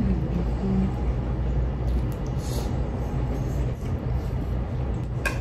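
A steady low rumble, with a short hummed "mm" in the first second and a single clink of a metal utensil against a plate near the end.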